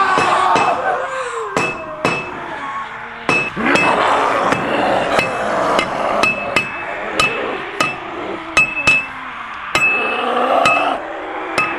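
Repeated sharp metallic clanks, each with a short ring, coming irregularly about once or twice a second over lower sliding tones.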